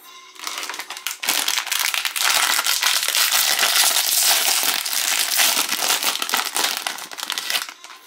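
Plastic wrapper of a Chipicao croissant packet crinkling loudly as hands pull it open, starting about half a second in and easing off near the end.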